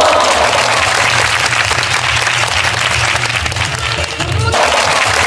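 A large audience clapping together in sustained applause, dipping briefly a little over four seconds in and then carrying on.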